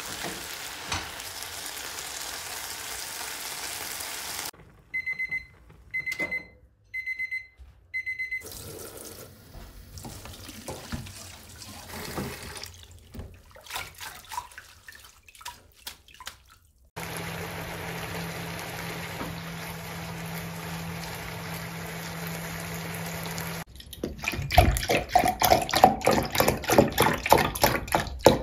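Diced chicken sizzling in a frying pan, then four short electronic beeps about a second apart from a kitchen appliance. A few soft knocks follow, then water runs steadily into a steel sink. Near the end, soy milk glugs in quick regular pulses as it is poured from a carton into a measuring jug.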